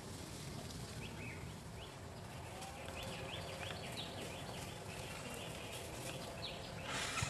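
A run of short, high chirping animal calls, repeated several times a second, over steady outdoor background noise, with a short rustling noise near the end.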